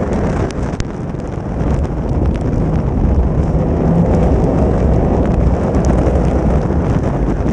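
Folkrace car's engine running hard on a wet gravel track, heard from a bonnet-mounted camera, with wind buffeting the microphone and short sharp ticks of gravel and spray hitting the car. The level dips briefly about a second in, then builds again.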